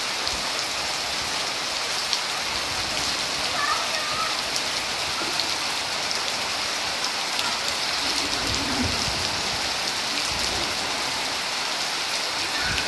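Heavy rain pouring steadily onto a waterlogged yard, a dense, constant hiss. Faint voices come through it a few times.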